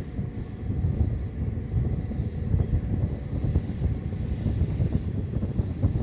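Running noise of an ICF passenger coach under way: a steady low rumble of wheels on the track, broken by frequent small knocks and rattles from the bogies and coach body.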